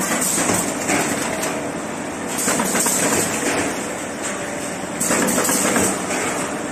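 Automatic corrugated cardboard partition assembly machine running: steady mechanical noise with fast, dense clattering and a hiss, louder and quieter by turns.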